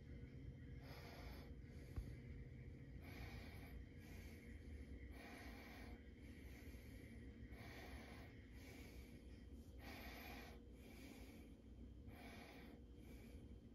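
Faint, slow breathing close to the microphone: soft in-and-out breaths about every second, over a faint steady hum.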